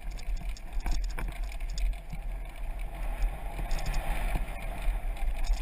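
Mountain bike descending a dirt singletrack, heard from a helmet camera. Wind buffets the microphone in a heavy low rumble over a rushing noise from the tyres on dirt, with irregular clicks and rattles from the bike as it runs over bumps.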